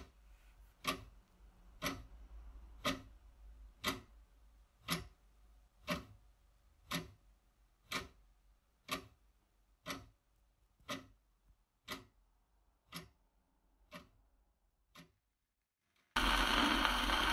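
A clock ticking once a second, the ticks growing steadily fainter until they stop; after about a second of silence, loud music with heavy hiss starts abruptly near the end.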